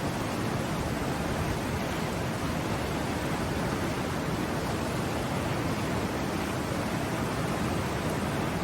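River water flowing, a steady, even rushing with no breaks.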